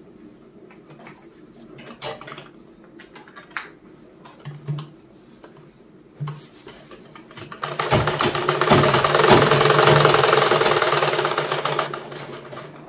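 Small clicks and handling noises while the sewing machine's needle is threaded, then, about eight seconds in, the black domestic sewing machine runs for about four seconds with a rapid ticking, stitching a seam, and fades out near the end.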